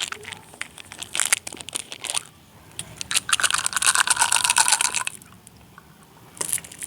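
Plastic candy packaging crinkling and rustling as it is handled and opened: scattered sharp crackles, then a dense run of crinkling from about three to five seconds in.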